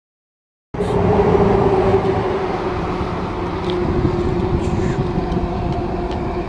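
A short stretch of dead silence, then a steady engine-like hum over a low rumble, with one held tone that sags slightly in pitch.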